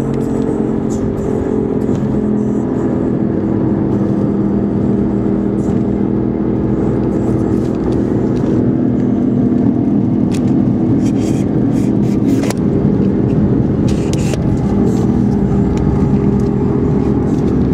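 A car driving at a steady speed, heard from inside the cabin: a steady engine and road hum.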